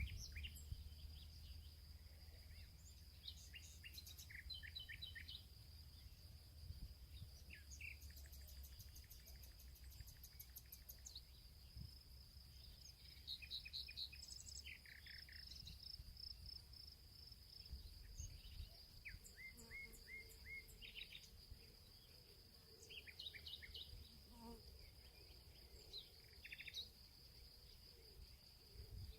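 Faint birds chirping, many short calls scattered throughout, over a steady high-pitched insect drone.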